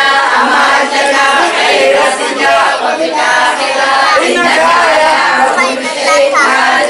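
A group of women singing together, many voices at once, with no break.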